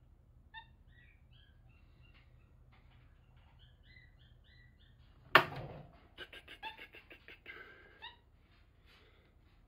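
Tufted capuchin monkey giving a string of short, high chirps. About five seconds in there is a loud sharp clack, then a quick rattle of the wire cage as the monkey climbs it, with a few more chirps mixed in.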